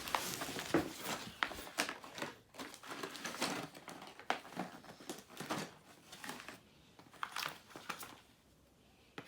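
Packaging of a new box of flashcards being torn open and crinkled by hand, an irregular run of crackling and tearing that dies down near the end.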